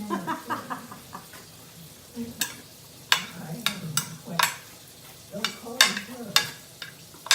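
Irregular sharp crackles and crinkles of stiff banana leaves being handled and folded around tamales.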